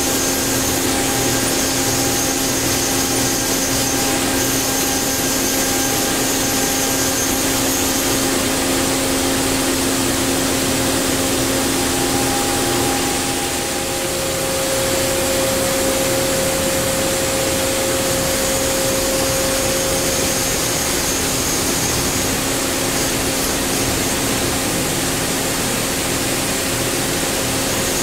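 Powered-up Daewoo Puma 2000SY CNC turning center humming steadily, with a few steady whining tones over the noise as its turret is jogged with the handwheel. About halfway through the level dips briefly, and then one whining tone grows louder for several seconds.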